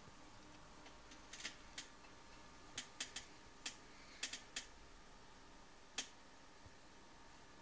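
About ten faint, sharp clicks at irregular spacing, several in quick pairs or triplets, over a low steady electrical hum.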